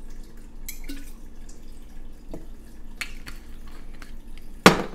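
Lime juice dripping from a small bottle into a blender jar, then bottles being handled, with a few light clicks and one sharp, loud click near the end.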